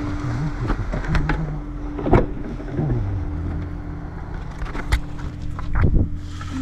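A vehicle running, with a low tone that falls about three seconds in and several sharp knocks and rattles.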